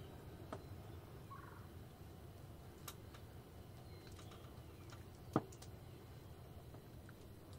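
Wild turkey calling faintly in the distance over a low steady outdoor rumble, with a few sharp clicks, the loudest about five seconds in.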